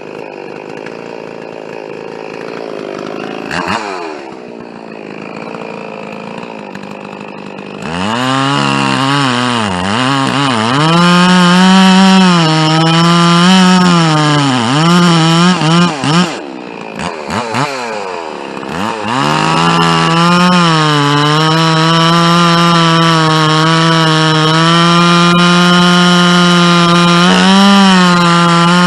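Two-stroke chainsaw cutting oak, running a bit rich on its first tank after a rebuild. It is quieter for the first several seconds, then from about eight seconds in runs at high revs under load, its pitch sagging and recovering in the cut. It eases off briefly about two-thirds of the way through, then cuts again at a steadier pitch.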